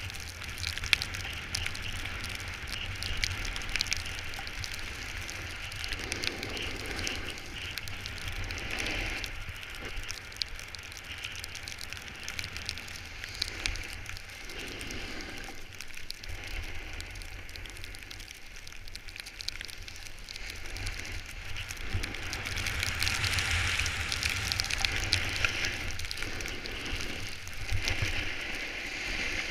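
Snow scraping and hissing under the edges of a board or skis sliding down a groomed slope. It rises and falls in swells and is loudest for several seconds about three-quarters of the way through, over a low wind rumble on the microphone.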